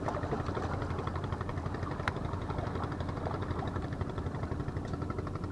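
Steady low engine rumble with a fine, even pulsing, and one faint click about two seconds in.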